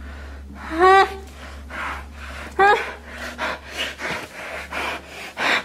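A woman breathing hard and gasping through a tissue held over her nose and mouth, muffled, with two short rising cries about one and three seconds in and a sharp breath near the end.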